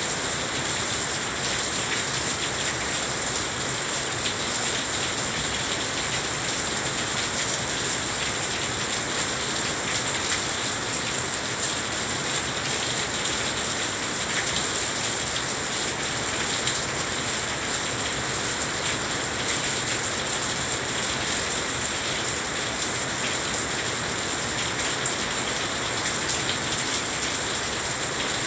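Heavy rain falling steadily: a dense, even hiss with faint scattered ticks of drops striking surfaces.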